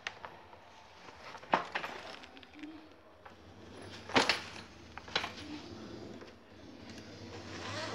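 A large zippered fabric travel bag being handled: a few scattered clicks and knocks, the loudest about four seconds in.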